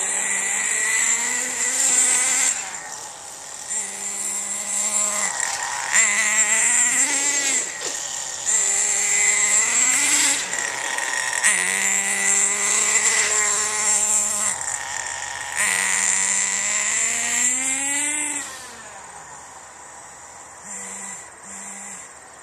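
Radio-controlled truck's motor revving up and down repeatedly, its pitch rising and falling in several runs as it drives; it drops away sharply about 18 seconds in.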